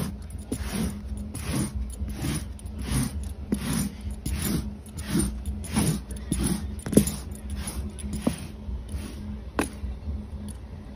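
A hand-held tool raked across carpet in a quick, even run of scraping strokes, roughly three every two seconds, which thin out near the end.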